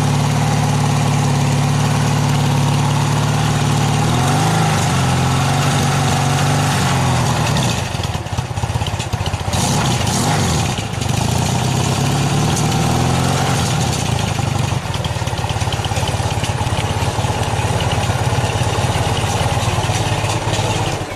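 1980 Yamaha XS650's air-cooled parallel-twin engine running at idle. Its speed shifts about four seconds in, rises and falls around ten seconds, then evens out. The sound cuts off abruptly at the very end.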